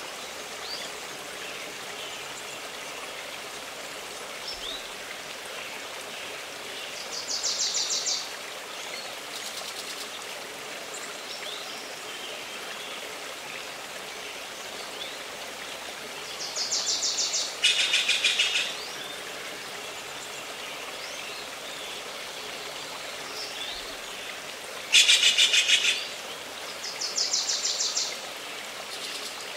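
Songbirds singing short, fast trills of about a second each, five times, the loudest two near the middle and about two-thirds through, over a steady hiss of running water.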